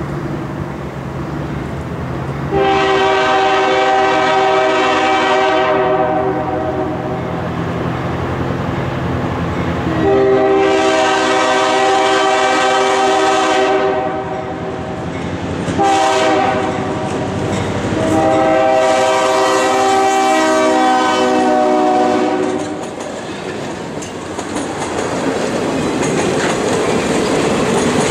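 EMD GP9 diesel locomotive's air horn sounding the grade-crossing signal: long, long, short, long. Near the end the train rolls past, its car wheels clattering over the rails.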